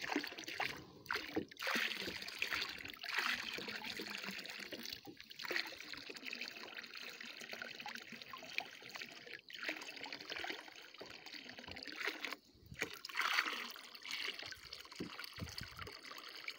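Small waves lapping and trickling against the hull of a sea kayak, in uneven washes that swell and fade.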